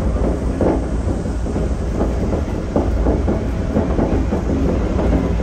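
Shonan Monorail 5000 series suspended monorail train running at speed: a steady low rumble from the running gear, with a short knock about once a second.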